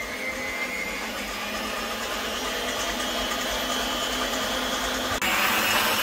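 Krups stand mixer running steadily, its whisk beating egg white in a steel bowl into foam. About five seconds in the sound abruptly steps up louder.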